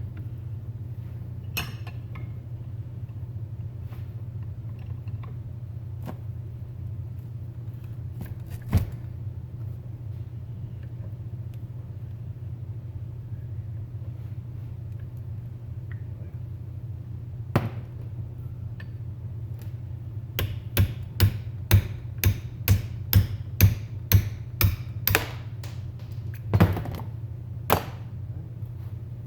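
Small hammer striking a seized, rusted rear brake wheel cylinder held in a bench vise, driving its pistons and cups out through the bore: a few single blows, then a quick run of about a dozen blows near the end. A steady low hum runs underneath.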